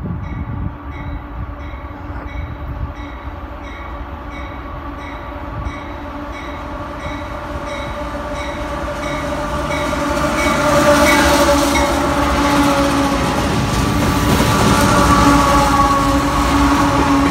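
CSX diesel freight locomotives approaching and passing close by, their engines growing steadily louder and at their loudest as the units go past in the second half. A faint bell dings about twice a second in the background through the first half.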